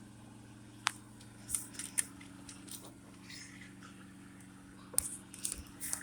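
Scattered sharp clicks and light rattles from hands working at the ignition switch's wiring connector, bunched about a second in and again near the end, over a steady low hum.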